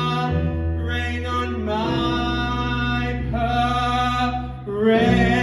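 A male vocalist belting long held notes with vibrato over a show-tune backing track with a steady bass. A brief break comes near the end, then a loud new note.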